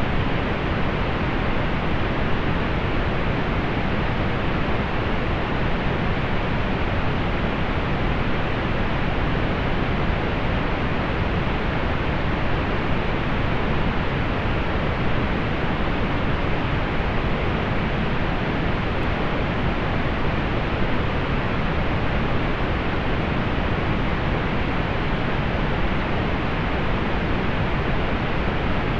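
Steady synthetic pink noise: an even, unchanging hiss weighted toward the low end, rolled off above the upper midrange.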